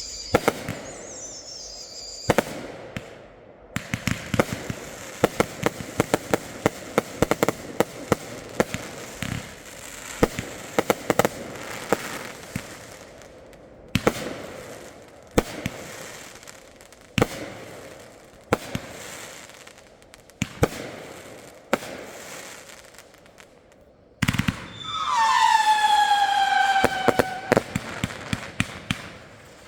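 Consumer fireworks going off: a rapid string of sharp bangs and crackles. About 25 seconds in, a loud whistle glides down in pitch for a couple of seconds.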